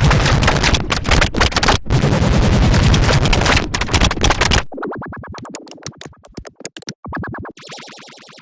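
Heavily processed electronic music, chopped into rapid stuttering pulses by a delay-and-modulation effect. It is loud and dense for the first four and a half seconds, then drops to thinner, quieter stuttering that fades out.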